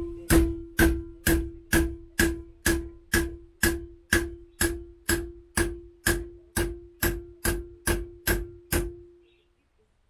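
Claw hammer striking a copper busbar in a steady run of about two blows a second, each with a short metallic ring, stopping about nine seconds in. The copper is being bent cold into a 90-degree angle.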